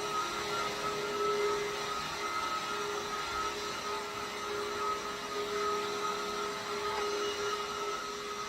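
Vacuum cleaner running steadily, an even whooshing noise with a constant motor whine.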